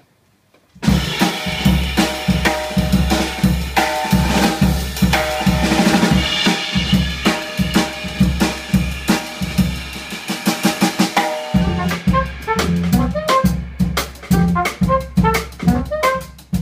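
Live jazz combo of drum kit, double bass and horns starting abruptly about a second in and playing loud and busy, with the drum kit prominent. About eleven seconds in the sound thins to sparser, more separate drum hits and notes.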